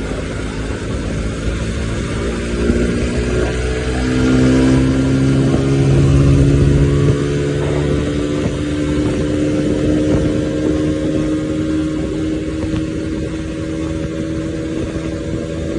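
Bajaj Pulsar NS200 motorcycle's single-cylinder engine under way, rising in pitch as it accelerates over the first several seconds, then holding a steady high-speed drone with road and wind noise.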